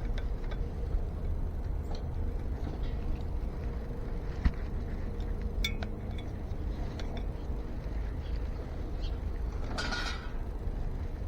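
Scattered small metallic clicks and clinks from hand tools and ebike brake hardware being handled while working on a brake cable, with one sharper click about four and a half seconds in and a brief rustle near the end, over a steady low rumble.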